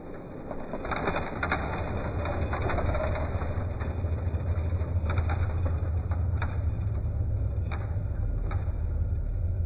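Die-cast toy cars rolling down a plastic drag-strip track, heard as a steady deep rumble with scattered clicks from the wheels and track joints. It sounds slowed down, as in a slow-motion replay of the race.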